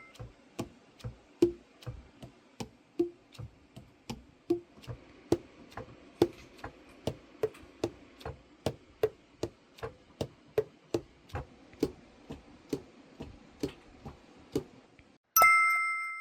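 Keys of a Selmer Reference 54 tenor saxophone being worked one after another, their pads clicking shut on the tone holes about two to three times a second, each click with a short hollow pop. A chime rings near the end.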